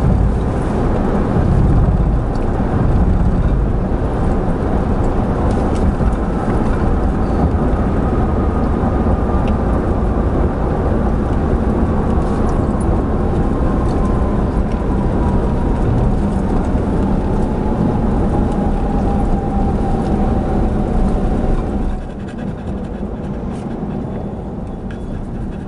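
Steady road and engine noise inside the cabin of a moving vehicle, with a faint whine that slowly falls in pitch. The noise drops noticeably near the end as the vehicle slows.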